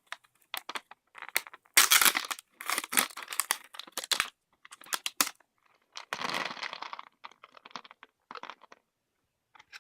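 A snack pack being torn open and handled, its packaging crinkling and crackling in irregular bursts, loudest about two to four seconds in, with a longer rustle around six seconds and smaller crackles after.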